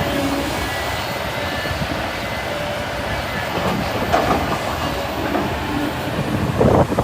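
Heavy diesel excavator machinery running steadily, with a louder, rougher stretch near the end.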